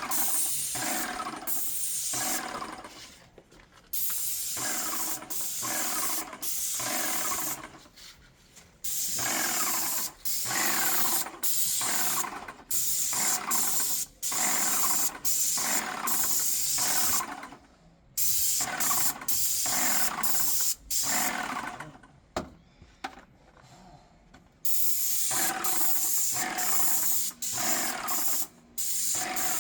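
Graco Magnum X5 airless paint sprayer spraying: the pump runs with the hiss of paint leaving the tip, starting and stopping as the gun trigger is pulled and released. The runs last from about a second to several seconds, with a longer pause about two-thirds of the way through.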